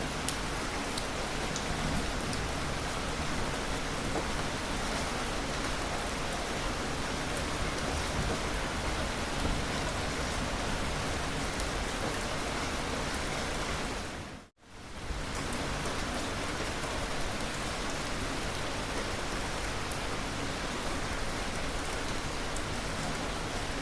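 Steady rain falling on a surface, a dense even hiss. About two-thirds of the way through it dips to silence for a split second and fades straight back in.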